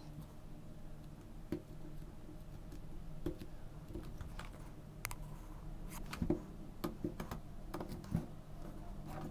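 Utility knife and fingers working at the shrink-wrap of a cardboard box: scattered light clicks and taps, the loudest about six seconds in.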